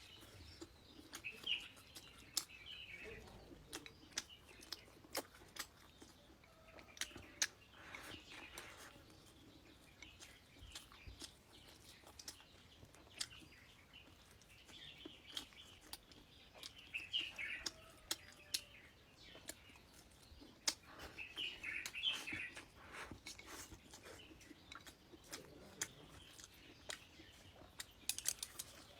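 Close-up eating sounds: many sharp clicks and small crunches of chewing and gnawing on duck heads and duck feet. Birds chirp now and then in the background, in a few short bursts.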